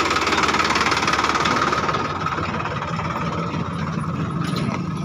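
Tractor diesel engine running close by with a steady clatter, a little louder over the first two seconds and then settling into an even run.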